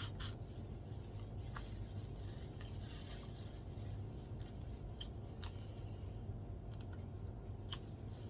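Boiled crawfish being peeled and eaten close to the microphone: a few sharp shell cracks and clicks scattered over a faint steady low hum.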